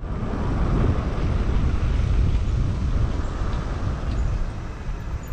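Steady rumble of wind on the microphone mixed with road noise, as from riding along.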